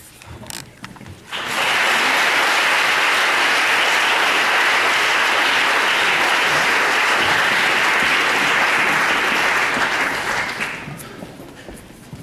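Audience applauding: the clapping starts suddenly about a second in, holds steady and loud, and dies away near the end.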